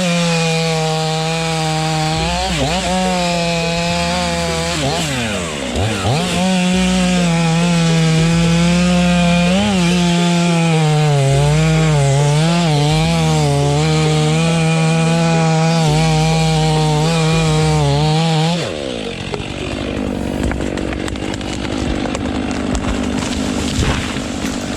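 Two-stroke chainsaw running at high revs while cutting wood. Its pitch dips sharply twice in the first few seconds and then wavers as the chain bogs under load. About three-quarters of the way through it cuts off, and a quieter, steady mechanical noise follows.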